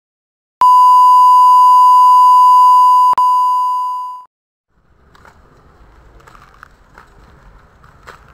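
A loud, steady electronic beep tone, held for about three and a half seconds with a brief break a little after three seconds, then fading out. After a short silence comes faint outdoor background with a few light taps.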